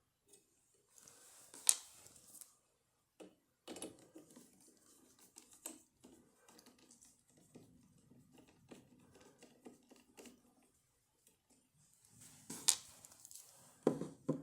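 Small metallic clicks, taps and scrapes of a Gibbons five-lever sash lock being handled and taken apart by hand to get at its levers, with a few sharper clicks about two seconds in and near the end.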